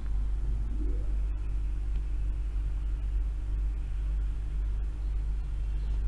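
Steady low hum and rumble in the background, with no distinct events.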